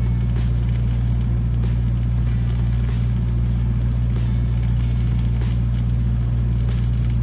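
Engine-driven welding machine running at a steady, unchanging speed, with faint irregular crackling over it from the flux-cored welding arc.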